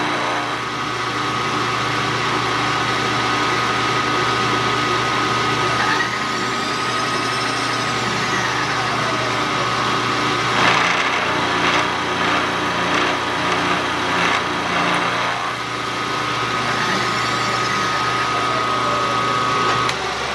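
Milling machine spindle running with the cutter taking a finish cut on a part held in a vise, a steady machine sound with a constant whine that stops shortly before the end.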